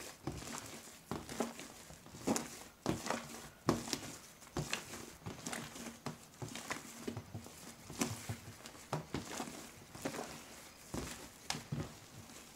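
Hands kneading and squeezing a large mass of white foamy slime: irregular wet squelches and crackling pops, several a second.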